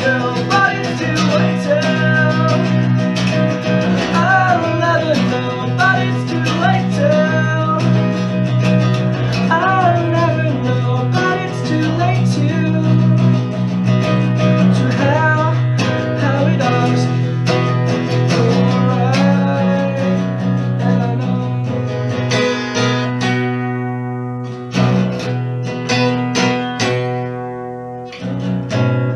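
Acoustic guitar song: strummed acoustic guitar under a sung melody line; for the last several seconds the melody stops and the guitar carries on alone with sparser strokes.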